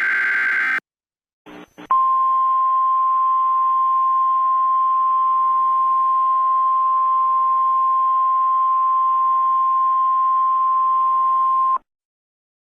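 The end of a SAME digital header burst, a short buzzy data screech, then NOAA Weather Radio's 1050 Hz alert tone: one steady beep held for about ten seconds over radio hiss, cutting off suddenly. It is the alarm that introduces a flash flood watch broadcast.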